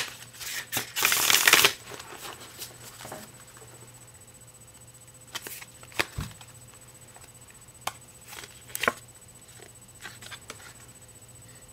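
A deck of large cards being shuffled by hand: a loud papery burst of shuffling in the first two seconds, then a few light clicks and taps as single cards are handled.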